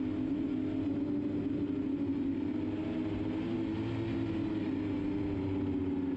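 Quadcopter drone's motors and propellers whirring in a steady hum whose pitch wavers slightly as the motors work against a strong wind.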